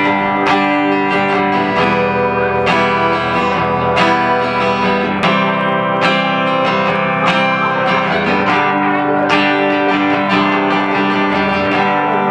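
Guitar strummed in steady, repeated chord strokes, the instrumental intro of a song before the vocals come in.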